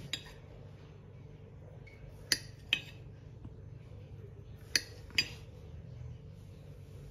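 Knife blade clinking against a plate as it cuts down through a set pudding: four sharp clinks in two pairs, one pair about two seconds in and another about five seconds in.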